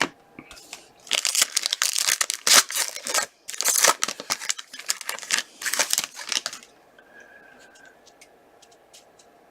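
Trading-card pack wrappers being torn open and crinkled, a dense run of ripping and crackling that stops about seven seconds in.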